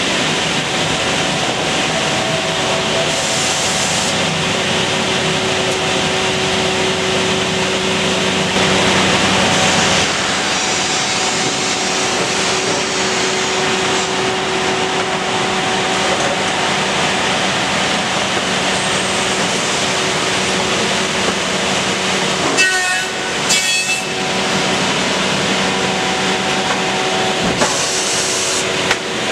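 Woodworking production line for glued laminated beams running: steady machine noise from motors and chain conveyors moving timber boards, with a few low hums under it. Two short bursts of hiss come in about three seconds in and again near the end, and the sound briefly drops out a little past the middle.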